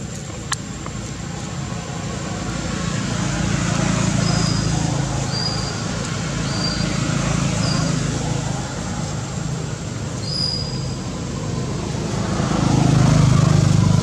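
Steady rumble of motor traffic, swelling near the end as a vehicle engine comes closer. In the middle, short high chirps repeat about once a second.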